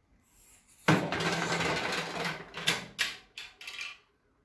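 Clattering and knocking of objects being handled close to the microphone. It starts suddenly about a second in and ends with several sharp knocks.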